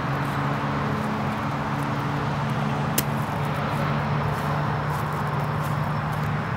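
A steady low motor hum over outdoor background noise, with a single sharp click about three seconds in.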